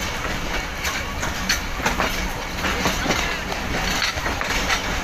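Passenger train coaches rolling along a station platform, heard from an open coach window: a steady running rumble with wheel clacks over the rail joints at irregular intervals.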